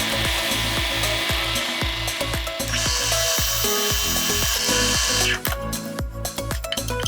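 A power tool working wood over background music with a steady beat; the tool's noise shifts about three seconds in and cuts off about two seconds later.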